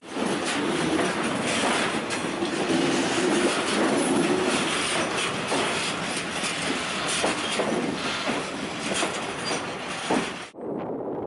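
Freight wagons rolling past close by: a steady rumble of steel wheels on rail with scattered sharp clicks as the wheels pass over rail joints and points. The sound cuts off abruptly near the end.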